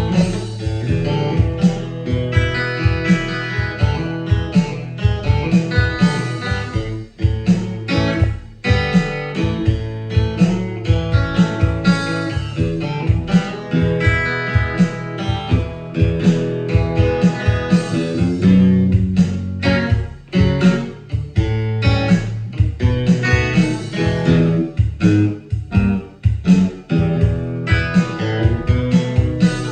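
Bluesy guitar instrumental: plucked and strummed notes over a steady low bass line, with a regular beat and no singing.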